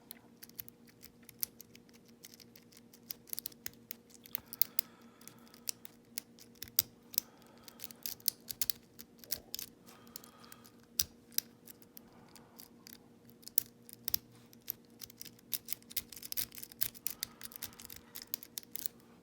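Lock pick clicking and scraping on the pins inside a five-pin ISEO euro cylinder lock, many small irregular clicks under tension, over a faint steady hum.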